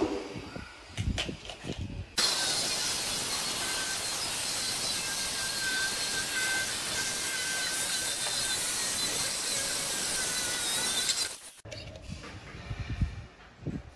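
Handheld electric stone-cutting saw cutting through a black granite countertop slab: a steady, loud grinding whine that starts abruptly about two seconds in and stops abruptly near the end. A few light knocks and taps come before and after it.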